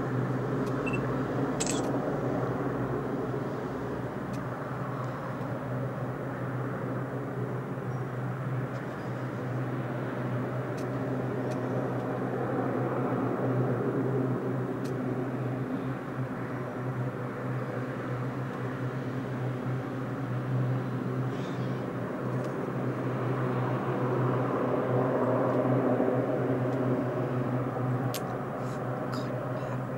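Distant search-and-rescue helicopter hovering: a steady low drone from its rotors and engines that swells and eases slightly, with a few faint ticks near the start and near the end.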